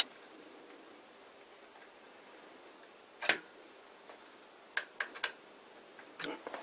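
A few sharp metallic clicks and taps of a screwdriver working at the brass bearing ring on an old metal lathe's headstock spindle: one louder clack about three seconds in, a quick cluster of lighter ticks near five seconds and two more near the end, with quiet room tone between.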